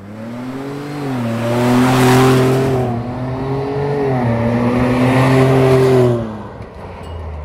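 Ford Bronco's 2.7-litre twin-turbo V6 through a Magnaflow aftermarket exhaust, heard from the roadside as the truck drives by. The engine note climbs, drops twice as it shifts up, and fades about six seconds in.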